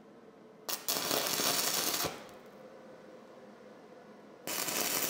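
Two short bursts of stick-welding arc crackle on steel, about a second and a half and then about a second long, as when tacking T-joints with a stick electrode.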